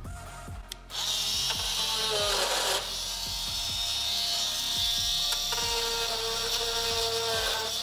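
Bosch oscillating multi-tool with a round saw blade, switched on about a second in and running steadily with a high-pitched buzz, sawing into the plastic tail-light housing. Its pitch dips briefly soon after it starts.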